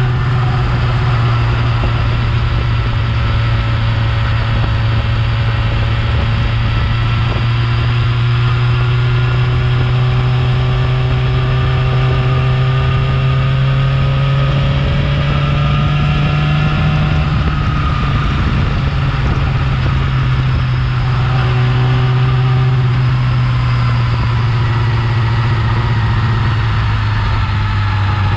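Yamaha R6's inline-four engine with its stock exhaust, running steadily, its pitch drifting gently up and down a few times.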